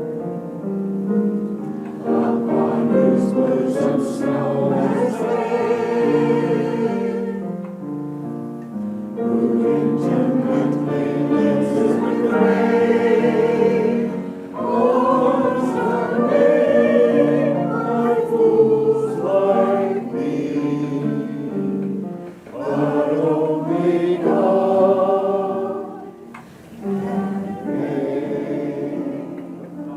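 A choir singing a slow song in several phrases, with short breaks between them.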